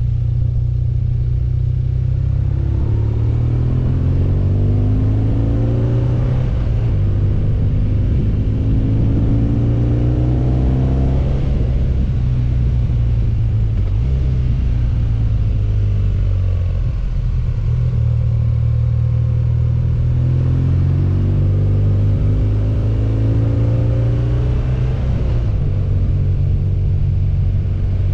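BMW adventure motorcycle engine running under way, its pitch climbing several times as the rider accelerates out of bends and dropping back as he eases off.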